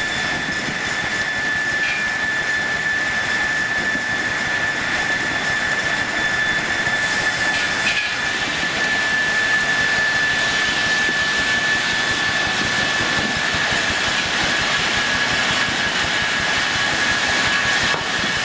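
Steam-driven sawmill machinery running: a constant mechanical rumble with a steady high whine held throughout, the machinery line-driven from a single steam engine below the mill floor.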